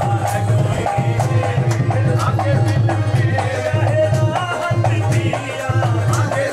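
Qawwali music: a tabla keeping a steady beat under a stepping melody line and singing.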